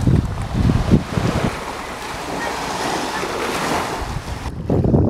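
Small waves washing onto a sandy beach, with gusts of wind buffeting the microphone. About four and a half seconds in the wash stops abruptly and heavier wind rumble takes over.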